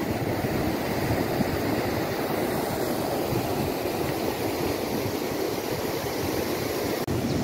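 Steady rushing of river water pouring over a concrete weir and out of its spillway channel.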